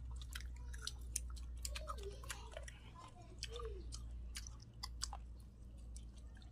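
Several people chewing chicken and greens close to the microphone, with frequent irregular wet clicks and lip smacks. A few short gliding sounds come in the middle, over a steady low rumble.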